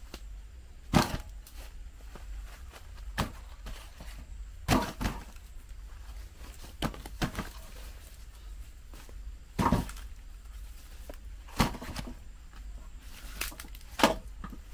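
Scattered sharp knocks and taps, about nine, irregularly spaced, over a steady low hum.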